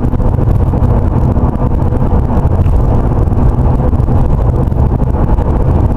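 Steady road and engine noise inside a car cruising on a motorway, a low, even rumble.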